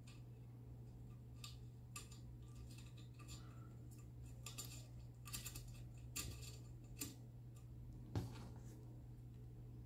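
Faint, irregular small clicks and ticks of an Allen key turning an M3 screw and fitting a plastic cable-support bracket onto an aluminium extrusion rail, with a slightly louder click near the end.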